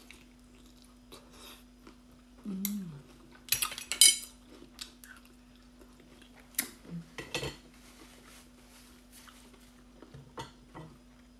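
Eating raw oysters from the half-shell: a metal spoon and oyster shells clink and click against a plate in scattered knocks, loudest about four seconds in, with some chewing and a faint steady hum underneath.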